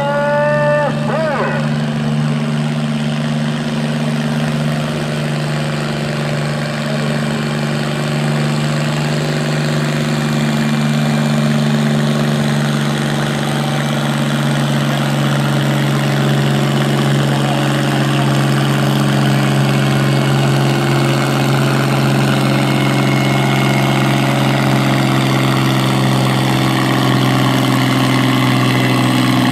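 An antique farm tractor's engine running steadily under load as it pulls a weight-transfer sled, holding a nearly even pitch and growing louder as it comes alongside. A brief voice-like call is heard in the first second.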